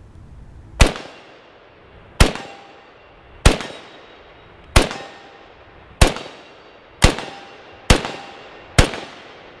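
Yugoslavian SKS semi-automatic rifle firing 7.62×39 rounds: eight single shots, at first about a second and a half apart and coming quicker toward the end, each with a short echoing tail.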